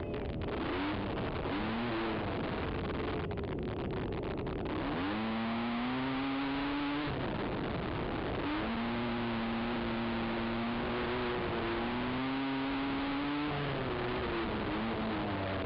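Race ATV engine under hard throttle, its pitch climbing and dropping back several times, with a long steady high stretch in the middle. A constant rushing noise lies under the engine.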